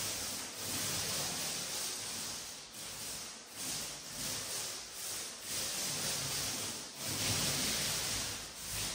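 Paint roller loaded with emulsion paint rolling over a wall, a sticky hissing in repeated back-and-forth strokes about once a second.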